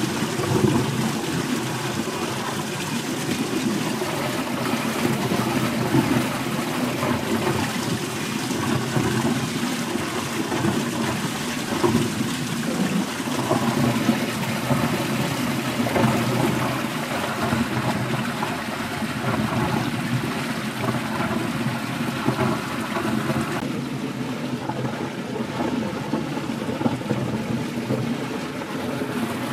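Water churning and splashing in a stainless steel tank, stirred by a Satake variable-speed agitator whose shaft turns at about 330 to 500 rpm. The sound is steady, becoming slightly quieter and duller near the end.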